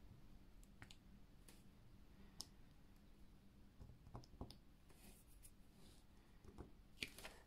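Near silence with a few faint, scattered clicks of a diamond painting drill pen picking up resin drills from a plastic tray and pressing them onto the canvas.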